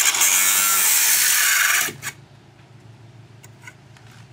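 Angle grinder's disc grinding against a steel chainsaw guide bar, deburring the edge of a freshly drilled oiler hole; the grinding cuts off about two seconds in.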